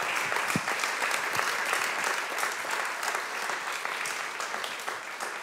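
Audience applauding with many hands clapping, dying down near the end.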